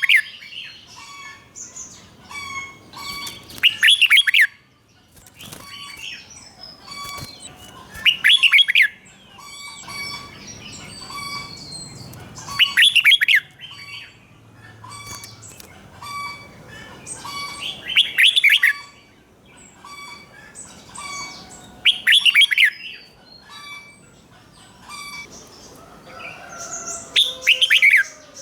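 Red-whiskered bulbul singing: six loud, brief song phrases come about every four to five seconds, with softer chirps in between.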